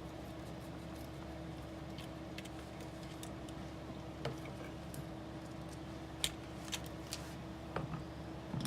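A few scattered small clicks and light taps as a wheel is taken off a scale RC truck, over a steady low hum.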